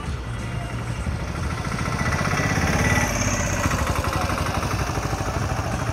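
Small motor vehicle engine running close by, getting louder to a peak about three seconds in and then easing, over the sound of passing road traffic.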